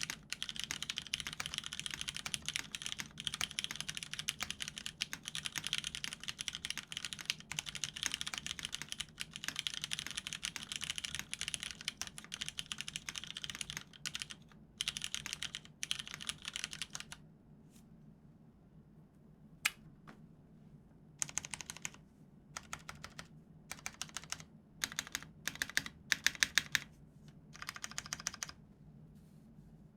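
Typing on a mechanical keyboard with lubed vintage Cherry MX Brown switches, an aluminium plate and Cherry dye-sub keycaps. For about the first 17 seconds the keystrokes come fast and continuous. After that they come in short separate bursts of a few keys, with quiet gaps between.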